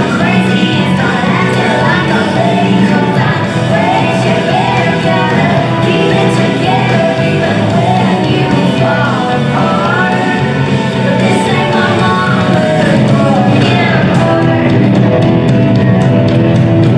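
Recorded country-rock song with a woman singing over a full band, playing loudly and steadily.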